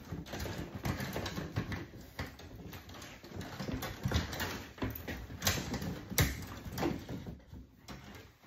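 Hands working wires and breakers in a residential breaker panel: irregular clicks, taps and knocks with rustling of cable, a couple of sharper knocks past the middle.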